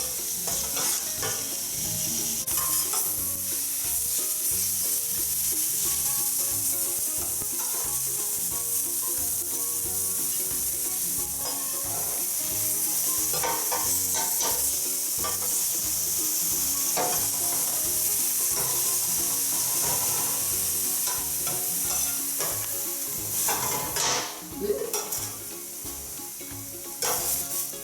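Beef stir-fry strips sizzling steadily in olive oil on a hot grill, with a few short scrapes and knocks of a utensil, most of them near the end.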